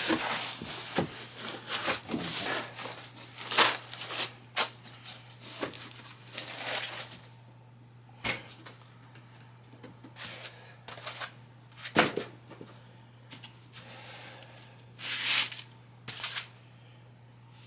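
Packaging being handled around a desktop computer: scattered clicks, knocks and short bursts of rustling, with a faint steady low hum underneath.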